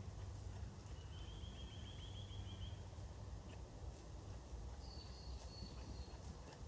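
Small birds calling over a steady low outdoor rumble: a quick high trill lasting about two seconds, then short high thin whistled notes near the end.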